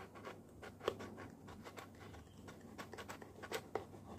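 Heated kitchen knife sawing through a stiff plastic shampoo bottle: faint, irregular scratchy strokes, a few a second, with one sharper scrape about a second in.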